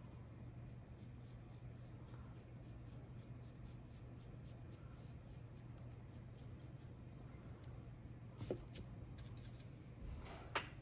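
Faint scratching of a paintbrush laying acrylic paint onto a papier-mâché figure, over a steady low hum, with a couple of light knocks near the end.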